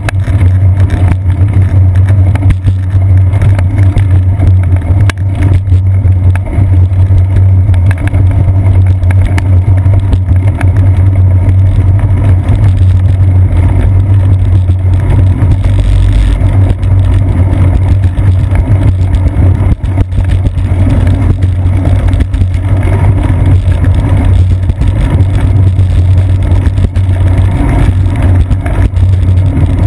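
Loud, steady low rumble of wind and road vibration picked up by a GoPro camera in its housing on a moving bicycle's seat post.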